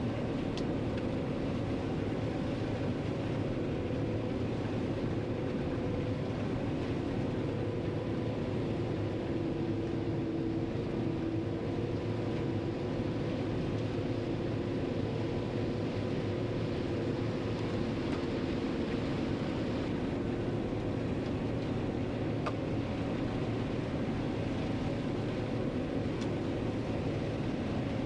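John Deere 9500 combine running steadily in four-wheel drive, heard from inside the cab: a constant machine drone with a thin steady whine over it.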